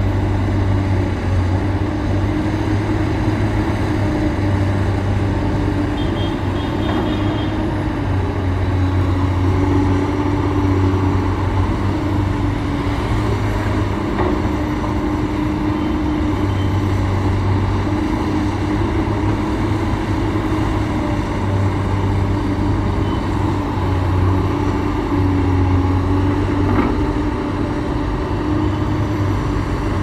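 Komatsu PC200 hydraulic excavator's diesel engine running steadily while it digs and swings loads. Its low hum swells and eases every few seconds as the load on the engine changes.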